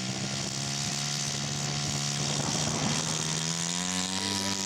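Engine of a large radio-control scale P-47 model running steadily at low throttle while taxiing. About three and a half seconds in, its tone changes and grows fuller.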